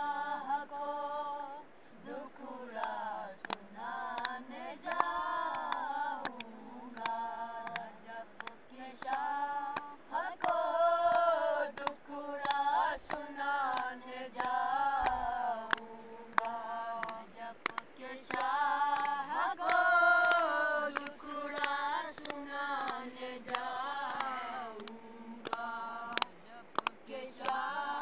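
Boys' voices singing a qasida, a devotional song in praise of Imam Ali, together and unaccompanied, with drawn-out melodic phrases broken by short pauses.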